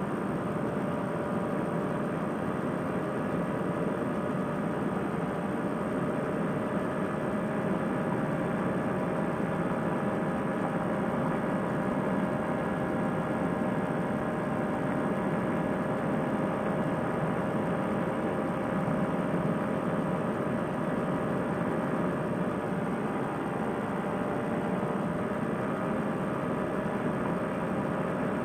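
Fresh Breeze Monster two-stroke paramotor engine and propeller running steadily at cruise power in flight, a constant drone with no change in pitch.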